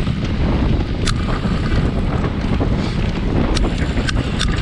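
Wind buffeting the microphone, a steady low rumble, with a few sharp clicks about a second in and several more near the end.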